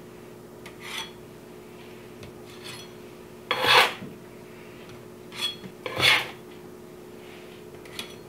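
Spatula scraping along the parchment on a sheet pan as it slides under baked cookies, in about five short strokes, the loudest about three and a half seconds in.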